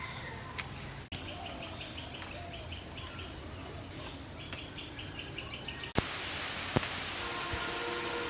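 Birds chirping in quick repeated high calls. About six seconds in, the sound switches abruptly to a steady, louder hiss with two sharp clicks.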